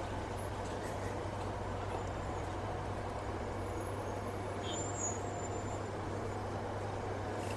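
Steady street noise of heavy city traffic, an even hum with no single event standing out.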